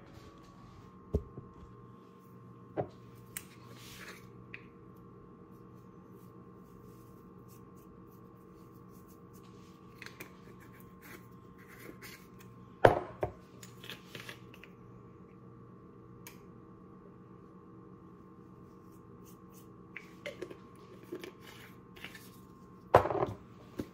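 Spice jars and lids handled as dried herbs are added to a pot: scattered soft clicks and taps, a sharp knock about halfway through and a short rattle near the end, over a steady low hum.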